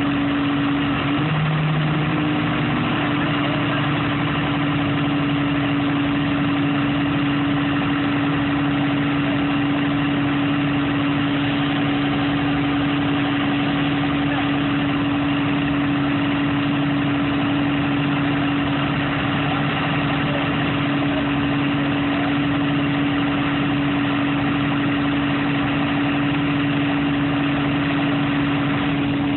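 An engine idling steadily, with a brief wobble in its tone about a second in.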